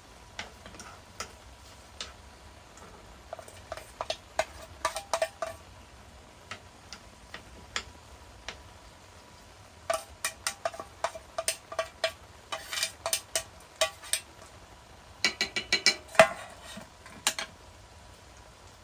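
Irregular metallic clinks and taps in clusters, some strikes leaving a short ringing tone; the densest, loudest run comes about three-quarters of the way through.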